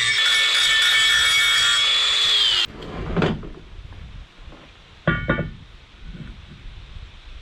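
Angle grinder running at full speed with a steady high whine, then switched off about two and a half seconds in, its pitch dropping as it cuts out. A knock follows, and about five seconds in a sharp metal clank that rings briefly.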